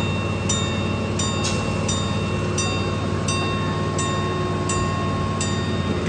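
Miniature ride-on train running along its track: a steady low drone with a light, ringing click about every 0.7 seconds as the wheels pass over the rail joints.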